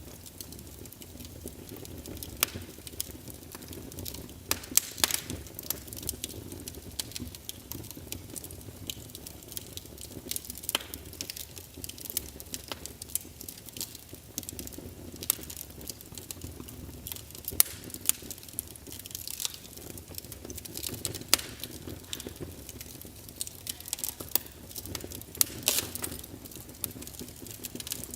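Wood fire crackling in a fireplace: irregular sharp pops and snaps over a steady low hiss of burning.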